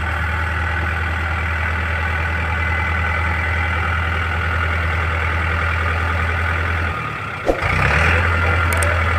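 Four-wheel-drive farm tractor's diesel engine running steadily as it works up a muddy, slippery track. About seven seconds in the sound drops out briefly, there is a sharp click, and then the engine comes back a little louder.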